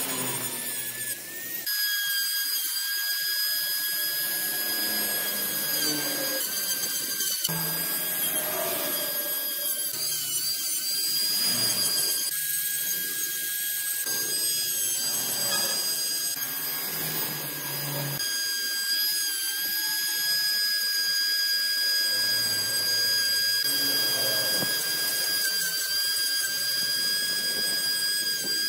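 High-speed electric power tool working wood, with a steady high whine held at a near-constant pitch over a rougher noise that comes and goes as it cuts. It drops briefly about a second in.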